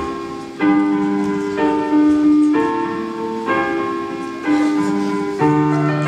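Piano music: a slow run of chords, a new one struck about once a second and fading before the next.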